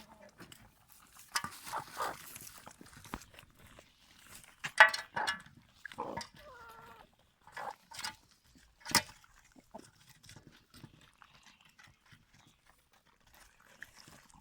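Chickens making scattered short clucks and calls, one a falling call about halfway through, with a few sharp knocks in between.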